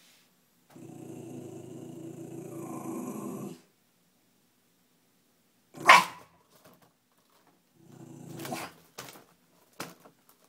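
Shiba Inu growling low and steadily for about three seconds, then letting out one sharp, loud bark about halfway through, and growling again more briefly near the end with a couple of short yips. A frightened, defensive growl and bark at a balloon.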